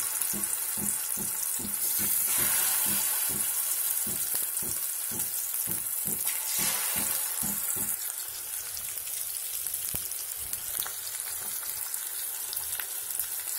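Masala-marinated fish pieces frying in hot oil in a kadhai: a steady sizzling hiss with fine crackle. For the first half a low, even pulse beats about three times a second, then stops.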